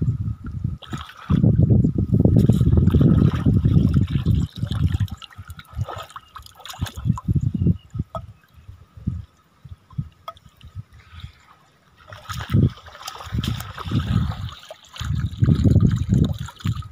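Shallow muddy water sloshing and trickling as a woven bamboo fish basket is scooped through a rice-field ditch and lifted out, in irregular spells with a quieter stretch in the middle.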